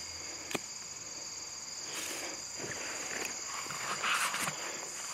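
A steady, high-pitched chorus of insects in the evening grass. Footsteps swish through the grass about two and four seconds in.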